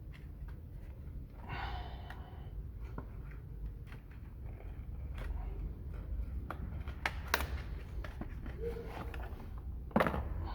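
Workshop handling sounds from work on a motorcycle's oil filter: scattered light clicks and knocks of tools and parts over a steady low hum, with a sharper knock near the end.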